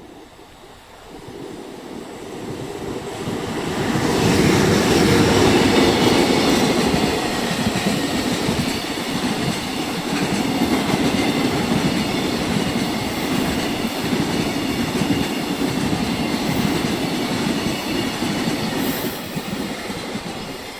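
A train passing at speed: the noise builds over the first few seconds, runs loud and steady for a long stretch, and falls away near the end.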